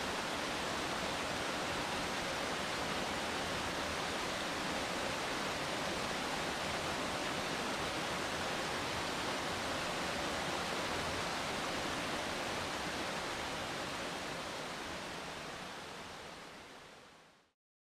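A steady, even rushing noise with no distinct events, fading out over the last few seconds.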